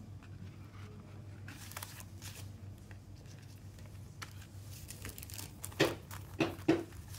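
Paper inserts and a thin plastic CD inner sleeve rustling and crinkling as they are handled and drawn out of a cardboard mini-LP sleeve, with three louder crinkles near the end. A low steady hum runs underneath.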